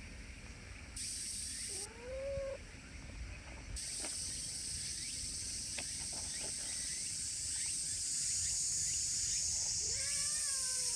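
Silver tabby cat meowing twice: a short rising meow about two seconds in and an arching meow near the end. A steady high hiss, the loudest sound, cuts in about a second in, breaks off briefly and runs on from about four seconds, with a few faint ticks.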